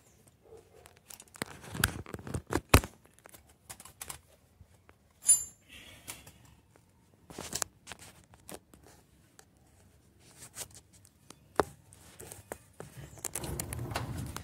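Handling noise from a phone camera being taken off its mount and carried around: rustling and scraping with scattered sharp clicks and knocks. The loudest knock comes about three seconds in, and a longer rustle comes near the end.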